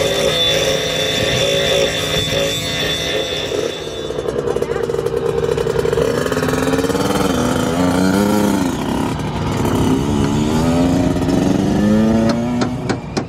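Angle grinder running with a steady high whine as it cuts a lock stopper off a car's underside, then, from about four seconds in, a Kawasaki KX65 dirt bike's small two-stroke engine revving up and down several times. A few sharp knocks near the end.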